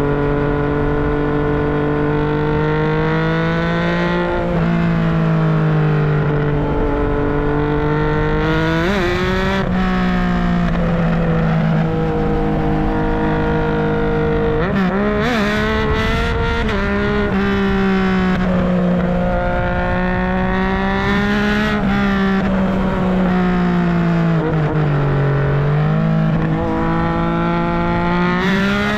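Yamaha MT-09's three-cylinder engine and exhaust running on the road, its pitch rising and falling with the throttle, with several abrupt pitch changes around the 9- and 15-second marks.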